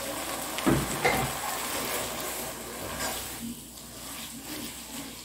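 Cooked spaghetti being stirred and tossed with a wooden spoon in a pot of seasoning fried in oil, with sizzling and a single knock just under a second in.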